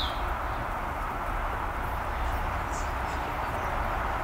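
Steady outdoor background noise with a low rumble, and a few faint bird chirps, one right at the start.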